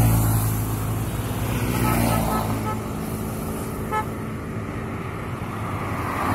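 Road traffic: a heavy vehicle's engine hums close by, then fades after a second or so, while other vehicles swish past. A few faint short horn tones sound about two and four seconds in.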